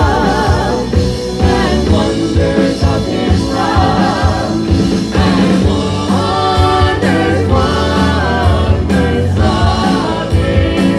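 A song with singing voices over a band accompaniment with a steady beat.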